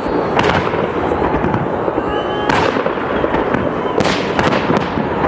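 Fireworks display: four loud shell bursts over continuous crackling.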